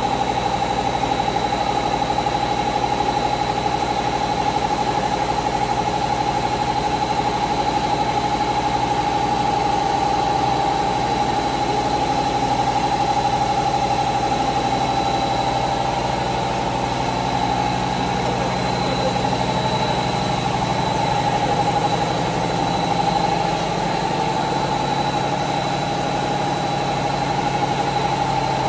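Plastic filament extrusion line running: a steady machine hum from its electric drive motors, with a constant high whine on top.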